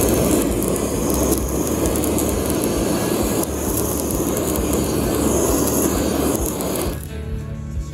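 Handheld kitchen blowtorch flame burning steadily as it sears a whole mentaiko roe, then cutting off sharply about seven seconds in.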